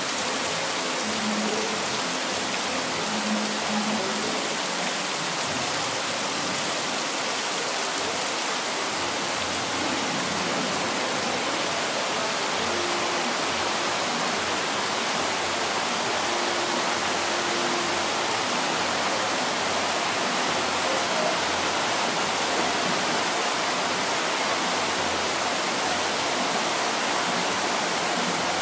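Heavy rain falling: a steady, unbroken hiss, with rainwater pouring off the roof edge.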